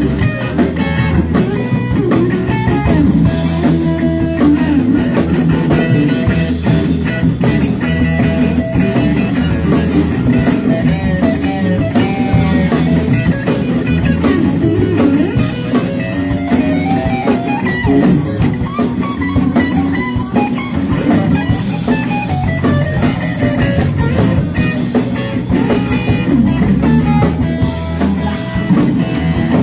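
Live rock band playing an instrumental jam: electric guitar carrying a bending lead line over bass and drum kit.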